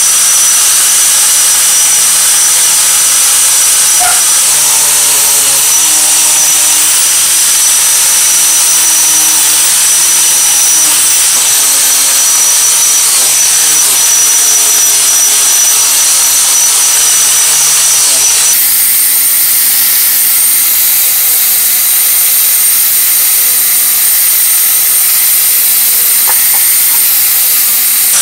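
Angle grinder fitted with a wire wheel brush, running at full speed and scrubbing rust and dirt off metal air-compressor pump parts: a steady high motor whine over the hiss of wire bristles on metal. About two-thirds of the way through, the whine abruptly jumps to a higher pitch.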